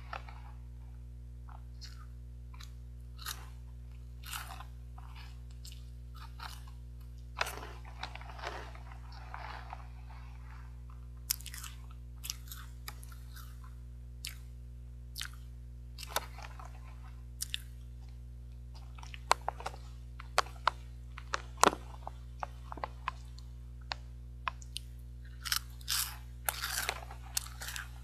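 Crunching and chewing of puffed caramel corn and peanut snack: irregular crisp cracks as the pieces are bitten. A hand rustles in the plastic snack bag between bites.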